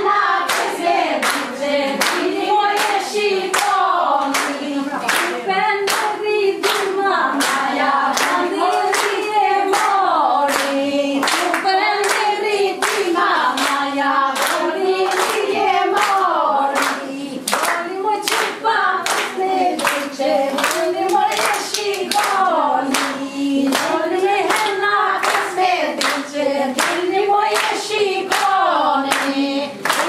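A group of women singing a traditional Albanian wedding song in unison, repeating a short rising-and-falling phrase over and over. Hand claps keep a steady beat of about two a second.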